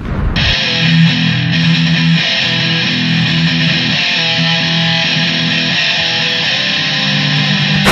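Guitar-led intro music with a repeating strummed pattern, and a sharp hit near the end.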